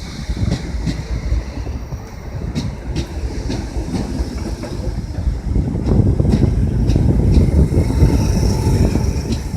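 Class 319 electric multiple unit rolling in on the rails: a low rumble with wheels clicking over rail joints, growing louder about six seconds in.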